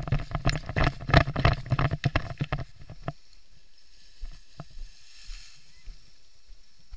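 A paragliding touchdown: a fast, uneven run of knocks and thumps over a wind rumble as the pilot comes down and runs it out. It stops about three seconds in, leaving a few light ticks as the wing settles onto the grass.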